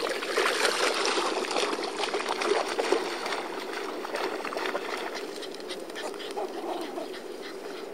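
Shallow beach water lapping and rippling at the shoreline, with small dogs scuffling at play; it is busiest in the first few seconds and then eases off.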